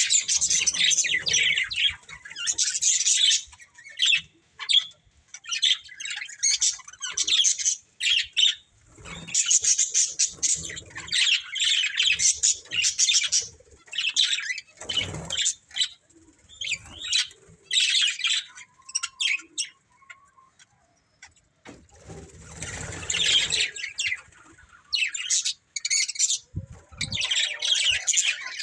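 Budgerigars chirping and chattering in fast, busy bouts with short pauses between them. A few rustling bursts come in among the calls.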